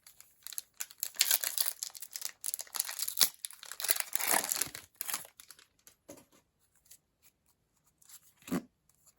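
Trading card booster pack wrapper being torn open and crinkled, the rustling busiest in the first half, followed by a few light taps and clicks as the cards are handled.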